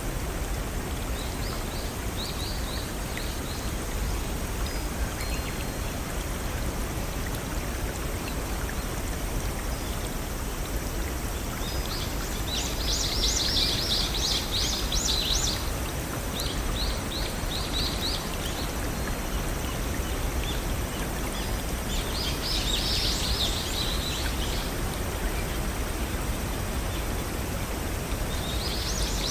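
Steady rush of water from a small waterfall or brook, with songbirds breaking in several times with quick series of high chirps and trills: briefly near the start, twice in the middle and again near the end.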